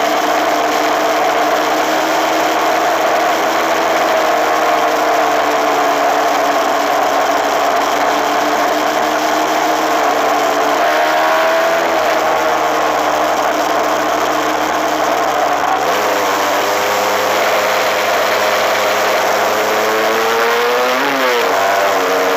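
Suzuki RMX250S dirt bike's single-cylinder two-stroke engine running steadily at road speed, with wind rushing past the microphone. The engine note shifts about 11 and 16 seconds in, and rises and falls sharply near the end.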